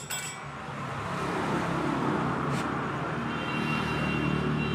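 A motor vehicle engine runs steadily with road traffic noise; it swells over the first second and then holds. A short metallic click comes at the start and another about two and a half seconds in.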